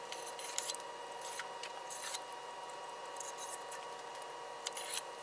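A knife slicing through taut monofilament polyester screen-printing mesh along the edge of a metal frame: short, scratchy cuts every second or so. A steady faint hum runs underneath.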